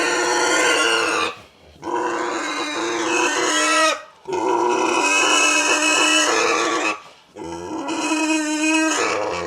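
A pig squealing in four long, loud calls with short breaks between them, as it is handled for a chiropractic adjustment of its jaw joint.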